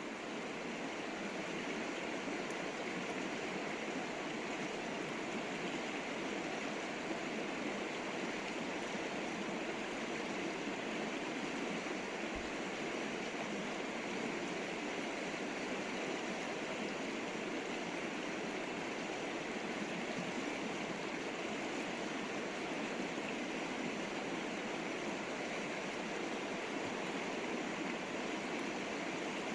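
A river flowing over rocks: a steady, even rush of running water.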